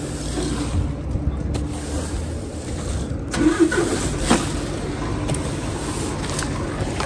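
Stiff push broom scraping across a wooden trailer deck, sweeping broken breeze-block rubble off the edge in repeated strokes. A steady engine hum runs underneath.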